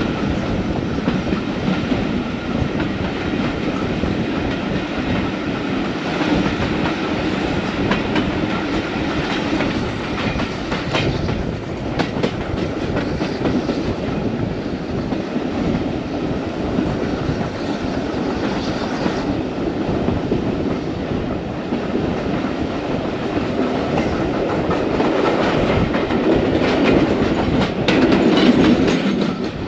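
Passenger train running along a heritage railway line: a steady rumble of carriage wheels on the track, with clicking over the rail joints and a few sharper knocks. It grows a little louder near the end.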